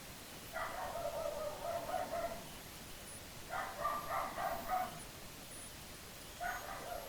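Dogs barking a little way off, in three bouts of quick, repeated barks.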